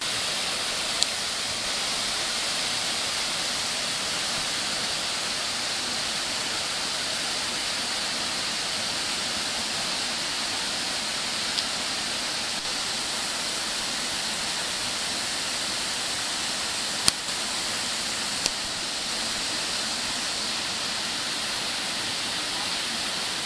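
Waterfall rushing: a steady, even hiss of falling water, broken by a few brief sharp clicks.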